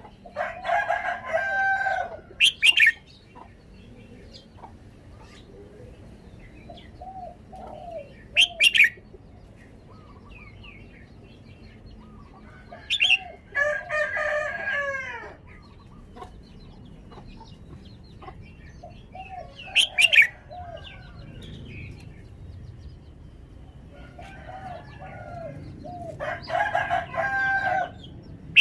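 Red-whiskered bulbul singing: short, loud phrases of clear gliding notes mixed with sharp high calls, coming every few seconds with quiet gaps between.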